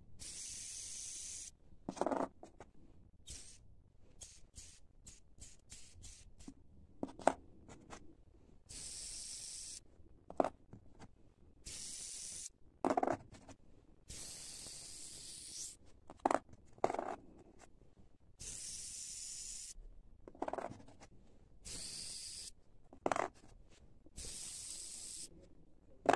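Small ceramic bearings, lubricated with graphite powder, spun one at a time between the fingers. Each gives a high hissing whir of about a second, and a soft knock follows as it is set down on cardboard. This happens about seven times.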